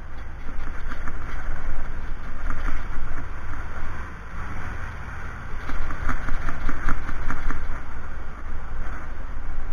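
Wind rumbling on the microphone, with scattered small clicks and knocks, most of them about six to seven seconds in.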